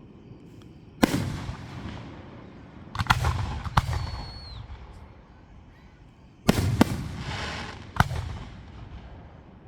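Aerial fireworks bursting overhead: sharp booms with a rolling, echoing rumble after each, once about a second in, a pair around three to four seconds, and a cluster from six and a half to eight seconds.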